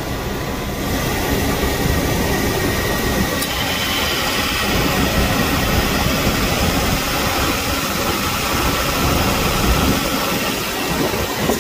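1999 GMC K1500 Suburban's 5.7-litre V8 idling steadily. It runs smooth and quiet on a new driver's-side exhaust manifold that replaces a cracked one.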